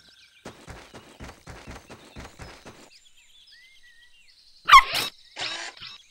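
Cartoon sound effects: a run of soft taps in the first few seconds, then, near the end, a quick rising zip followed by a high steady tone and mechanical whirring as a toy-like radar antenna springs up out of a puppy's backpack.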